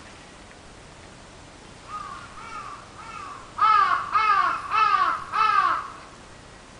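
A crow cawing seven times in an even series, about two seconds in: three fainter caws followed by four loud ones, each call dipping in pitch at its end.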